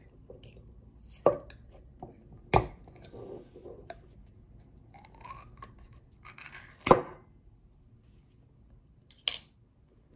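Aluminium pull-tab cap of a glass One Cup sake jar being peeled open by hand: a few sharp clicks and snaps as the tab is worked, then a short scraping rip of the metal ending in the loudest snap about seven seconds in as the lid comes away, and one more sharp click near the end.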